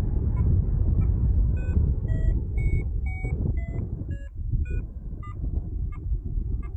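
Strong wind buffeting the microphone of a paraglider in flight, with a paragliding variometer beeping two to three times a second, its pitch shifting from beep to beep. The beeping signals that the glider is climbing in lift.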